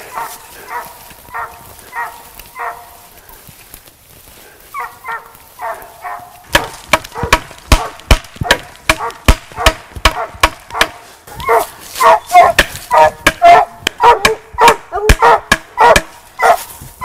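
Hunting dogs barking repeatedly up a tree, short barks about twice a second, treeing a squirrel that has gone into a hole in a den tree. From about six seconds in, a rapid run of loud sharp cracks and knocks close to the microphone joins and continues under the barking.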